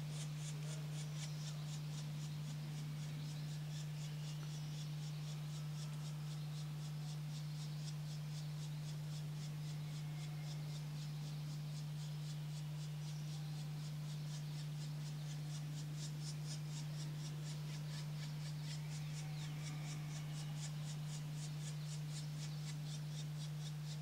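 A steady low hum, with a faint, fast, high-pitched rasping pulse over it that grows stronger near the end.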